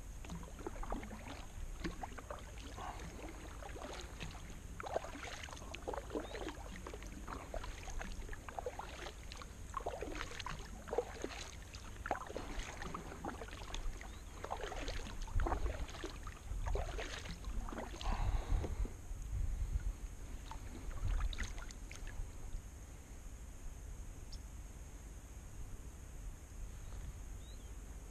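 Kayak paddling: the double-bladed paddle dipping and pulling through calm water with splashes and drips, stroke after stroke, with a few low rumbles in the middle. About three-quarters of the way through the strokes stop and only faint water sounds remain.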